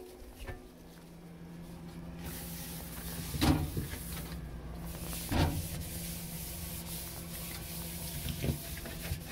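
Clunks of refrigerator parts being handled during cleaning: two loud knocks about three and a half and five and a half seconds in and a lighter one near the end, over a steady low hum and a hiss.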